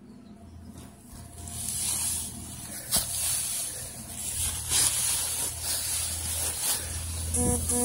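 Loose dry hay rustling as it is pushed and pulled by hand right against the microphone, in uneven surges, with a sharp crackle about three seconds in and a short pitched squeak near the end.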